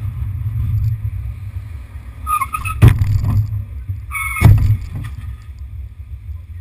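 Two short, high horn beeps about two seconds apart, each followed at once by a sharp knock, over a steady low rumble from the moving vehicle carrying the camera.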